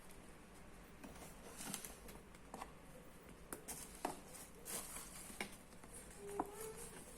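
Packaging being handled during an unboxing: faint, scattered rustles, taps and clicks, with a short squeak near the end.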